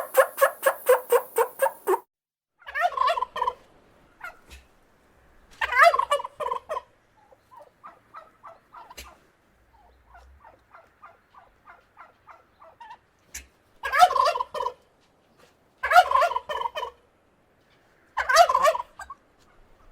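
Turkey gobbling repeatedly. A fast rattling gobble at the start is followed by five more gobbles a couple of seconds apart, with a softer stretch of faint, quick notes in the middle.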